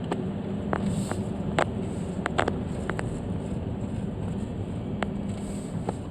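Car driving slowly off a ferry's vehicle ramp, heard from inside the cabin: a steady low engine and rolling noise with scattered sharp clicks and knocks.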